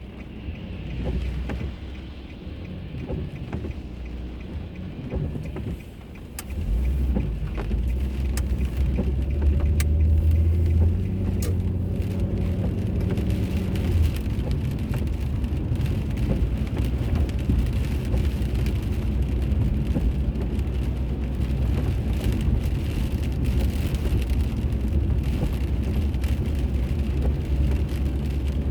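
Car on the road, heard from inside the cabin: a steady low rumble of engine and tyre noise that grows louder about six and a half seconds in and stays up.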